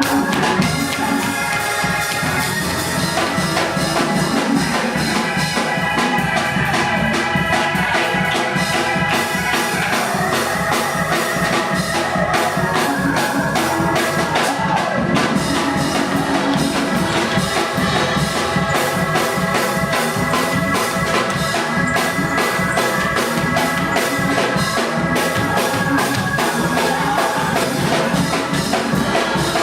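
Church music: organ and drum kit playing with a steady beat.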